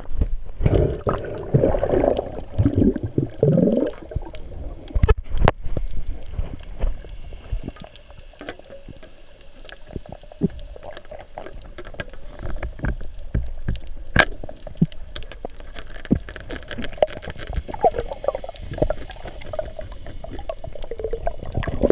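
Water sound heard through an underwater camera: muffled gurgling and water movement, with scattered sharp clicks and knocks. The gurgling bursts are loudest in the first few seconds.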